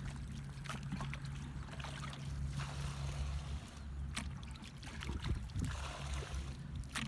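Muddy water splashing and trickling as a person wades and handles a plastic bucket, tipping it into a plastic basket near the end, over a steady low drone.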